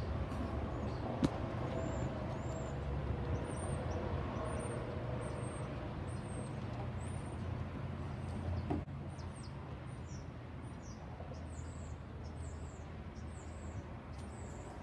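A small bird chirping over and over in short, high notes, about two a second, the notes becoming short downward slurs in the second half. Under it runs a steady low background rumble.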